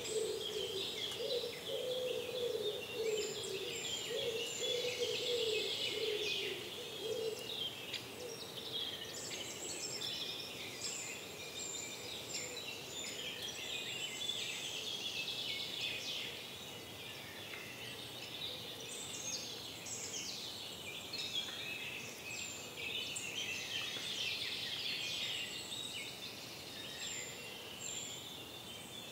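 Morning chorus of many songbirds singing over one another, with dense overlapping chirps and trills. A lower wavering sound runs under them for the first several seconds.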